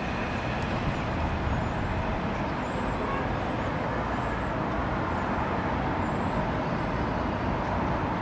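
Steady city traffic noise: an even low rumble with no break, with a few faint, short high chirps over it.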